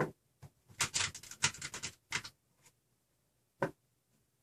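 Small steel hex nuts clicking and clinking as they are handled and set down: a sharp click at the start, a quick run of rattling clinks about a second in, then two single clicks.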